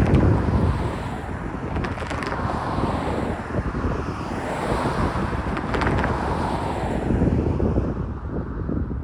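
Freight train cars of a grain train rolling past a grade crossing, a steady rumble of wheels on rail with paired clacks as wheel trucks cross rail joints. Wind is on the microphone.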